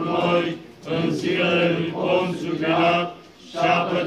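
Male Orthodox liturgical chanting in Romanian, on a steady reciting pitch, in phrases with short breaks about a second in and near the end.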